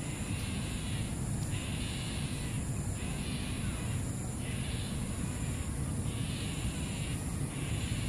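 A harsh, raspy animal sound repeated about every second and a half, each lasting about a second, over a steady low rumble.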